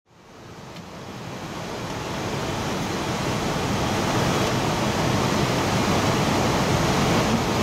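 Steady rushing noise inside an Airbus A320 cockpit in flight, fading in from silence over the first few seconds.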